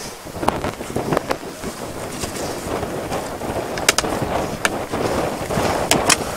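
Strong wind buffeting the camera microphone, a steady rumbling rush, with a few sharp clicks about four and six seconds in.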